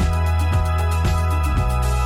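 Background music from an iMovie soundtrack: sustained bass notes and chords over a steady beat.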